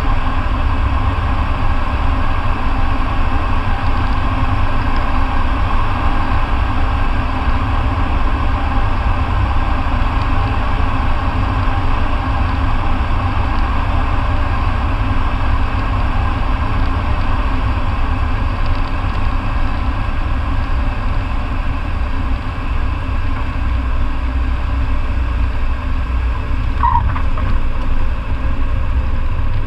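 Light aircraft's engine and propeller droning steadily, heard inside the cockpit during a night approach and landing, with a deep low hum. A brief high chirp sounds near the end.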